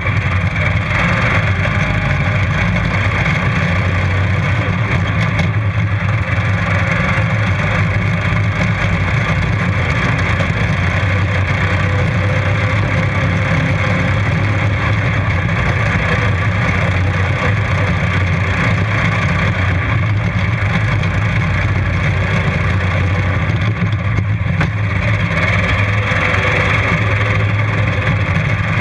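Racing ride-on lawn mower engine running steadily at speed, loud and close, heard from on board the mower.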